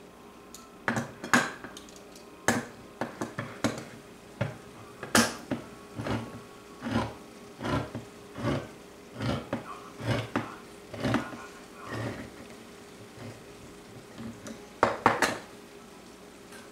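Kitchen utensils and cookware clattering as they are handled: a string of sharp metallic clinks and knocks about once a second, with a quick cluster of louder clatters near the end.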